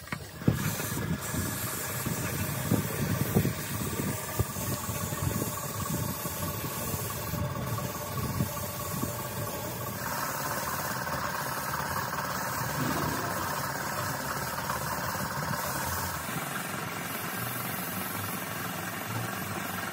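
Small tank-mounted piston air compressor driven by an electric motor, running steadily with a fast knocking beat. From about ten seconds in, an air spray gun adds a hiss as it sprays coating into a brake drum mould.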